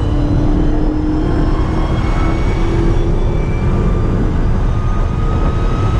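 Dodge Charger SRT Hellcat's supercharged V8 running at a steady cruise, a constant low rumble with a high whine whose pitch drifts slowly.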